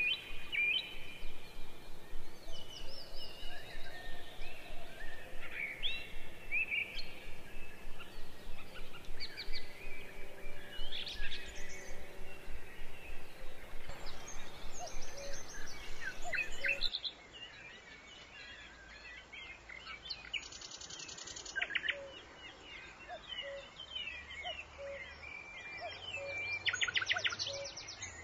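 Small birds chirping and whistling, with short calls throughout. About two-thirds of the way in the sound becomes quieter and changes, and two rapid trills follow.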